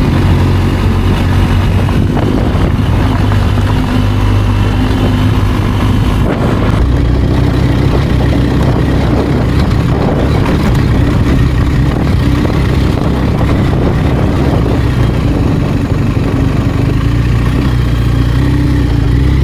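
BMW R1250GS boxer-twin engine running steadily, its note shifting about six seconds in.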